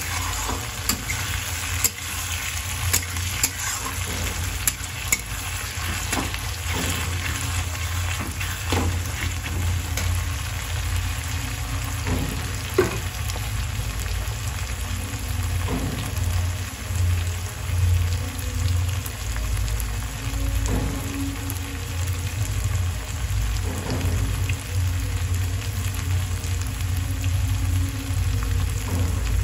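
Sliced onions and tomatoes sizzling in hot oil in a black kadai, with a steel spatula now and then scraping and clacking against the pan in short sharp knocks. A steady low hum runs underneath.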